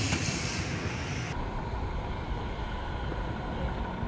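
Outdoor background noise: a steady low rumble with no distinct events. A brighter hiss cuts off abruptly about a second in, at an edit, and the low rumble continues.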